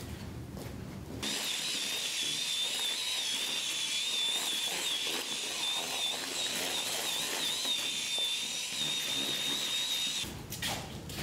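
Electric drill with a mixing paddle stirring a thick grey mix in a plastic bucket, running steadily with a high, slightly wavering whine; it starts about a second in and stops near the end, followed by a few knocks.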